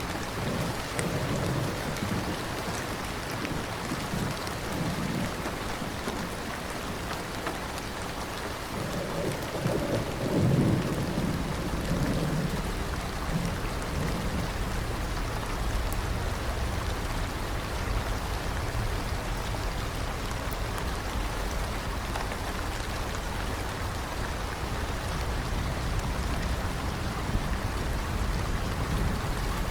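Steady rain falling, with rolling thunder rumbling low in the first few seconds and a louder rumble about ten seconds in.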